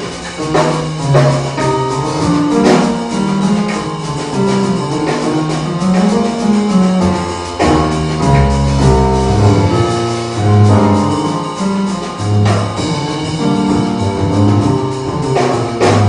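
A keyboard and a drum kit playing live together: a moving line of low notes on the keys, with drum and cymbal hits over it.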